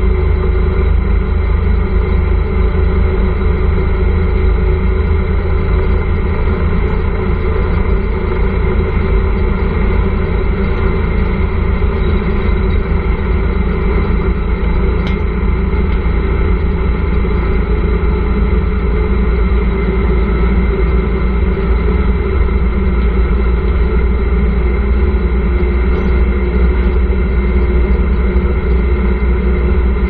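Motorcycle engine of a tricycle (a motorcycle with sidecar) running at a steady pace, its note holding even with no revving or gear changes.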